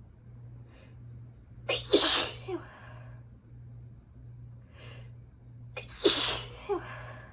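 A woman sneezing twice, about four seconds apart, each sneeze with a short breath in just before it: allergy sneezes.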